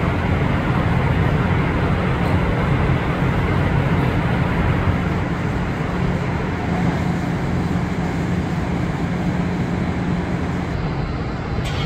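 Docked cruise ship's machinery and ventilation running: a steady low hum under an even rushing noise.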